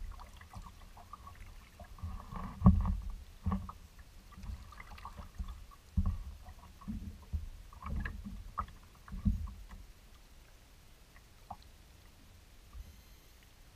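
Kayak paddle strokes splashing in the water, with water sloshing around the kayak. The strokes come irregularly and die away about ten seconds in.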